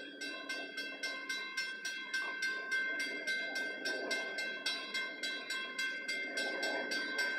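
Railroad grade-crossing warning bell ringing in quick, even strokes, about three to four a second, as the crossing activates for an approaching train.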